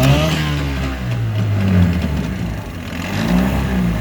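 1965 Ted Williams (McCulloch) 7.5 hp two-stroke outboard motor fired right up and running, its engine speed rising and falling unevenly.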